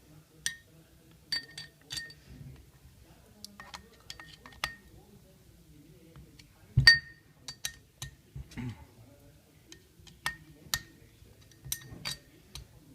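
Metal parts and hand tools clinking and tapping against each other: a dozen or so sharp, separate clinks at irregular intervals, many with a brief bright ring. The loudest clink comes about seven seconds in.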